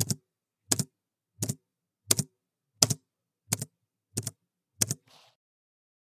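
Computer keyboard keys struck one at a time at a slow, even pace: eight keystrokes a little under a second apart, each a quick double click as the key goes down and springs back. A faint soft rustle follows the last one.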